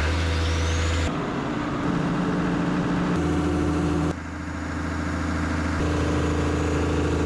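Kobelco K907-LCII excavator's diesel engine running at idle just after starting, for a test run to check the newly plumbed hydraulic lines for leaks. Its sound shifts abruptly several times.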